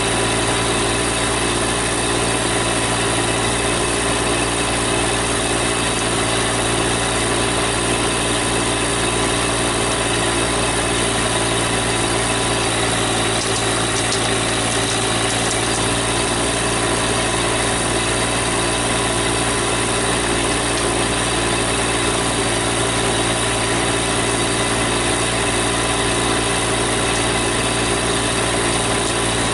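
Compact tractor engine idling steadily, with an even, unchanging drone.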